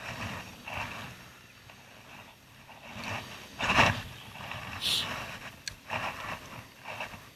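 Handling noise from a jacket sleeve and hand brushing against the camera microphone: a series of irregular rustling scrapes and bumps, the loudest about four seconds in.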